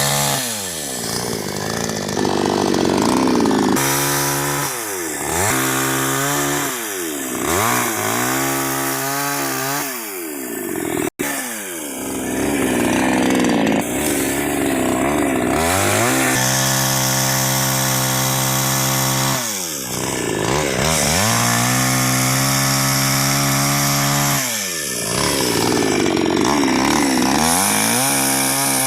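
Chainsaw running and cutting wood, its engine speed dropping and climbing back again every couple of seconds, then held at high speed for several seconds at a time through the cuts in the second half.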